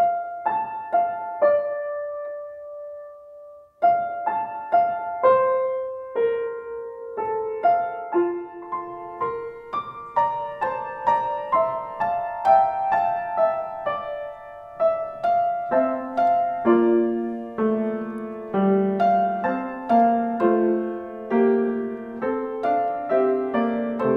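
Solo grand piano playing a slow, gentle introduction, note by note. A held note fades out and the playing breaks off briefly about four seconds in, and lower bass notes join in the second half.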